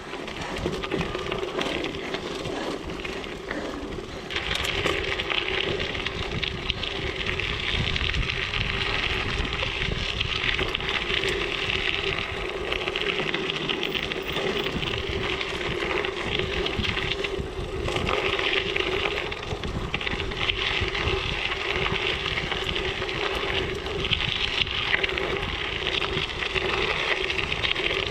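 Mountain bike tyres rolling steadily at speed, a continuous tyre noise with wind on the microphone, growing louder about four seconds in.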